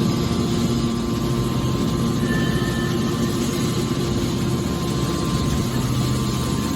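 Hydraulic baler machine running with a steady mechanical hum.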